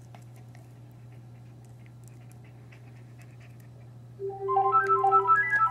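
A Bichon Frise puppy gnawing a rawhide bone, with faint scattered clicks over a low steady hum. About four seconds in, music with a bright tune of short notes starts and takes over.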